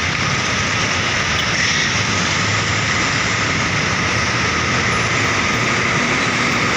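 Steady road traffic noise: heavy vehicles such as buses passing on a busy road, a continuous mix of engine and tyre noise.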